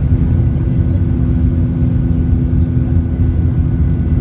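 Airplane engines running: a loud, steady low rumble with a constant hum of tones above it.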